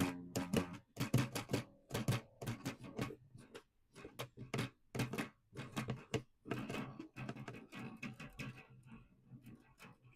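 Guitar strung with elastic bands instead of strings being strummed and plucked: a quick run of short strokes with only a brief ring after each, thinning out near the end.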